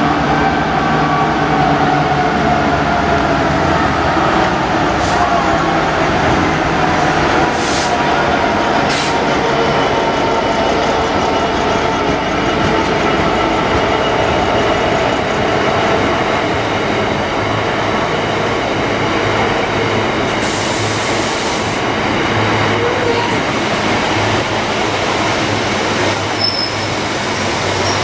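Class 66 diesel freight locomotive, with its EMD two-stroke V12 engine, approaching and passing close by. The engine's drone falls in pitch as it goes past, followed by the steady rumble of the biomass hopper wagons rolling by. Two sharp knocks come about eight and nine seconds in, and a brief high hiss about twenty seconds in.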